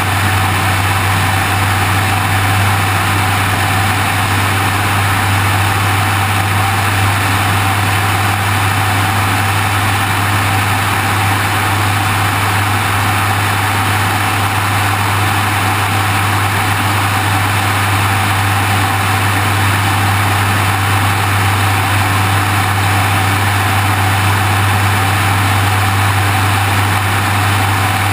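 Steady drone of an airplane's engine, with wind rushing over a wing-mounted camera: a constant low hum under a broad hiss, unchanging throughout.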